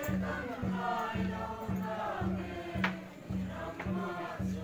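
A crowd singing together in chorus over a steady low beat, about two beats a second. A single sharp click stands out about three seconds in.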